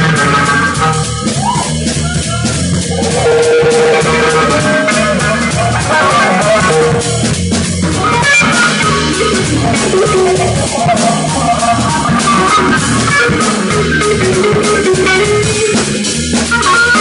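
Live blues-rock band playing an instrumental passage: electric guitar lines over a drum kit, with no singing.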